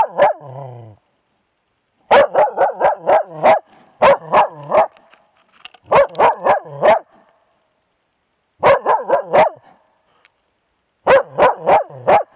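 Young moose-hunting dog barking at a moose cow held at bay, in quick runs of three to six barks with pauses of a second or two between runs. The barks are loud and close, from a camera worn on the dog.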